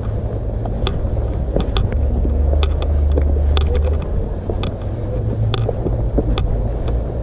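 Wind rumbling on the microphone, heaviest about two to four seconds in, over scattered sharp clicks and scuffs of footsteps on the rocky, muddy trail.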